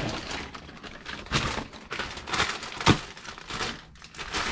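Irregular crinkling and rustling of things being handled, with a sharp click about three seconds in.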